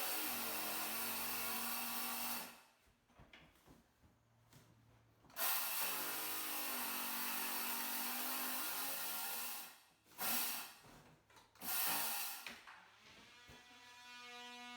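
Power tool motor running in bursts: one of about two seconds, a longer run of about four seconds, then two short blips, each with a whining motor under a loud rushing noise. A steady hum sets in near the end.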